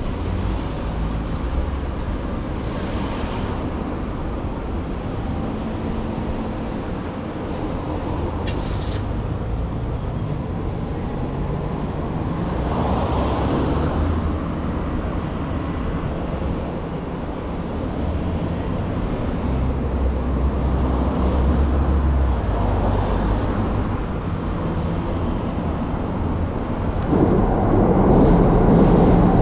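Road traffic: cars passing one after another through a junction, a steady engine and tyre rumble that swells as each goes by and gets louder near the end.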